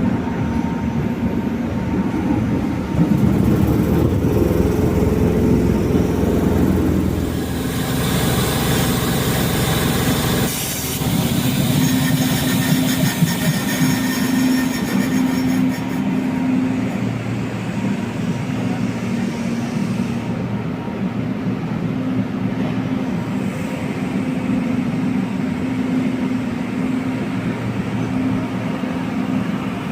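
A train running at a railway station, with a loud stretch of hissing, rattling noise that stops abruptly about ten to eleven seconds in, followed by a steady low hum.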